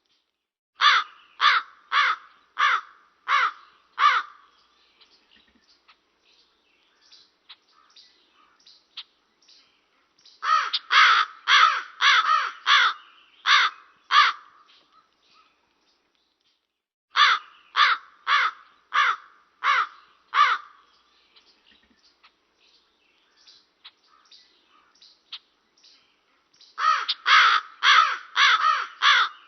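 A raven cawing in four bouts of five to eight harsh calls, about two a second, with quieter gaps between the bouts.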